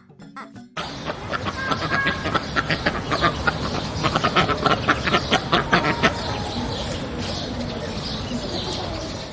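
Ducks quacking: a burst of many short, rapid quacks for about five seconds, then fainter over a steady noisy background until it cuts off near the end.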